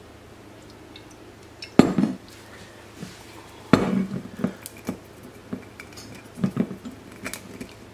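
Glass bottles knocking and clinking against a countertop as they are handled and set down: a sharp clack about two seconds in, another a couple of seconds later, then a run of lighter clinks and taps.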